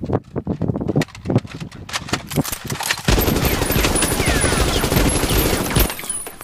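Movie-style automatic gunfire sound effect: scattered sharp bangs, then a long burst of rapid machine-gun fire starting about three seconds in and stopping shortly before the end.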